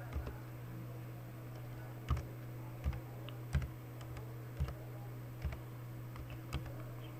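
Computer keyboard being typed on slowly, single keystrokes clicking about once a second at an uneven pace, over a steady low hum.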